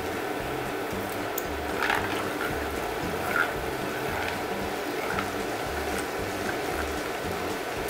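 Ball of sticky rice dough deep-frying in hot cooking oil: a steady sizzle and bubbling, with a few sharper pops about two and three and a half seconds in.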